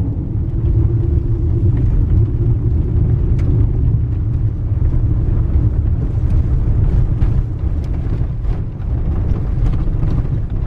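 Toyota RAV4 driving, heard from inside the cabin: a steady low rumble of engine and tyres, with scattered light clicks and rattles.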